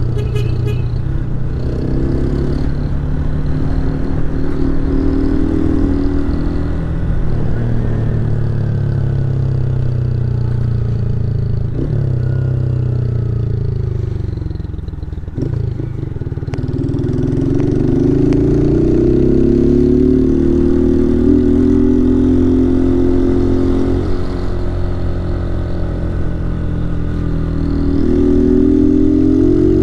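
Honda 160 motorcycle's single-cylinder engine under way, its revs climbing and dropping again and again as the bike accelerates and shifts. About halfway through it eases off and goes quieter for a moment, then pulls hard again.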